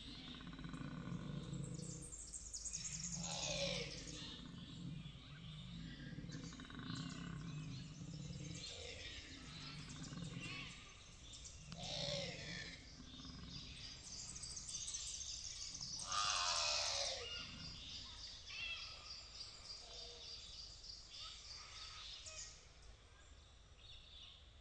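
Koala bellowing in a series of low, pulsing phrases, each a second or two long. Birds call over it, with several steeply falling calls and a high trill about two-thirds of the way through.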